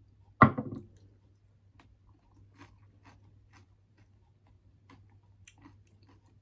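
Close-miked chewing of a mouthful of food, with faint wet mouth clicks scattered throughout. A loud short knock-like sound comes about half a second in.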